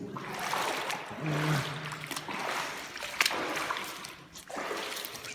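Water splashing and sloshing as someone wades knee-deep through a flooded room, legs pushing through the water in uneven surges.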